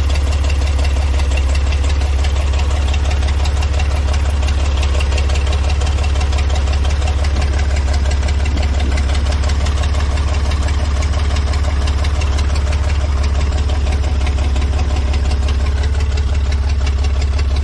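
1960s GMC dump truck's 401 V6 gasoline engine idling steadily, kept running on gasoline poured by hand from a bottle straight into the carburetor.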